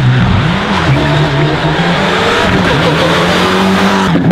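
Rally car engine at high revs, its pitch rising and dipping as the driver works the throttle, with a rushing noise of tyres on the road over it. The sound changes abruptly about four seconds in.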